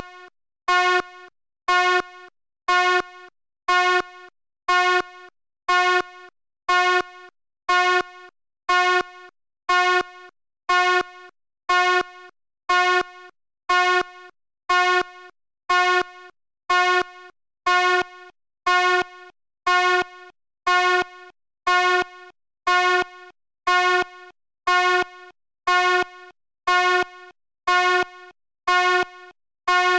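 Fire alarm sounding short buzzy blasts at a steady rate of about one a second, each a loud rasping tone that drops off sharply before the next.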